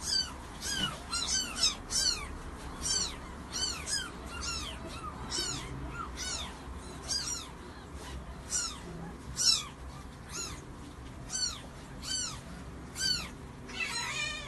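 Newborn kitten mewing over and over: short, high, thin cries that rise and fall, about one and a half a second.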